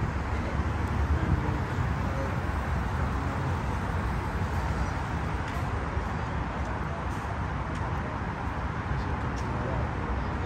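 Steady road traffic noise from a busy multi-lane road: an even hum of passing cars with no single vehicle standing out.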